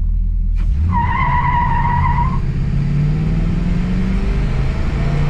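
Front-wheel-drive Oldsmobile Toronado launched at full throttle: the front tires squeal for about a second and a half, then the engine revs rising as the heavy car accelerates.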